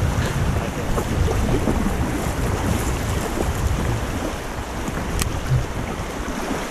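Fast, choppy river water rushing steadily, with wind buffeting the microphone in low rumbling gusts. There is one small sharp click about five seconds in.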